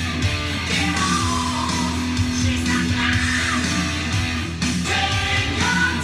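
Hard rock music with a sung vocal and electric guitars playing.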